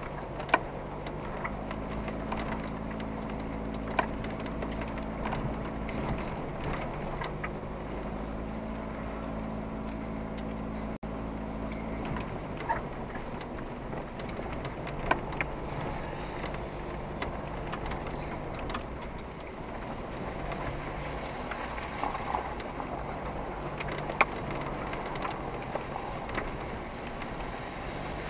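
SUV driving slowly over a rough dirt track, heard from inside: a steady engine hum that changes pitch a couple of times, with a few sharp knocks and clicks from the car going over bumps.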